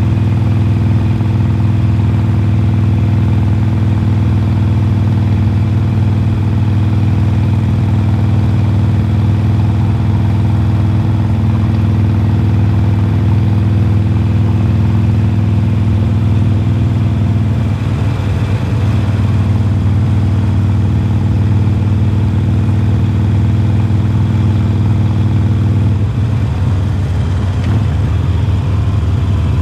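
2020 Harley-Davidson Forty-Eight's air-cooled 1200 cc Evolution V-twin running through Khrome Werks slip-on mufflers while cruising. The steady exhaust note loosens and changes twice, about two-thirds of the way in and again near the end.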